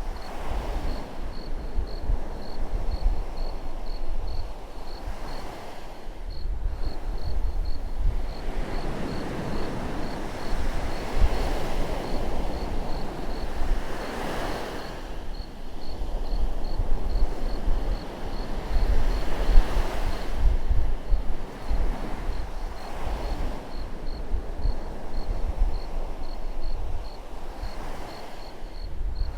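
Atlantic ocean waves breaking and washing onto the shore, swelling and ebbing every few seconds. A low rumble of wind buffets the microphone underneath.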